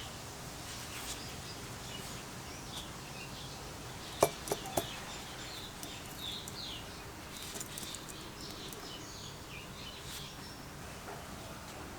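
Small birds chirping over and over over a steady hiss, with three sharp clicks in quick succession about four seconds in, the first the loudest.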